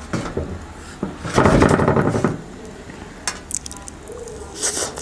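A brownie is dipped and scraped through peanut butter in a small bowl, making a loud rasping scrape about a second and a half in. A few light clicks follow, then a short wet bite into the brownie near the end.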